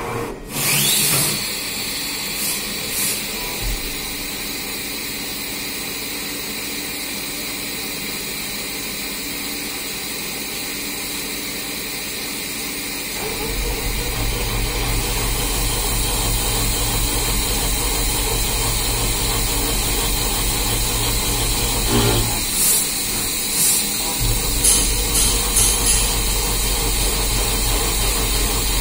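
CNC vertical machining centre running: a steady machine hum with a high spindle whine. About 13 seconds in, a deeper hum and a hiss join as the cutter works the clamped workpiece under a flood of coolant, with a few short louder bursts of cutting noise later on.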